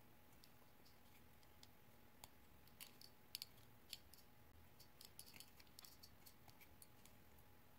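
Faint, irregular small clicks and ticks of thin metal wire being hand-wound around a wooden knife handle.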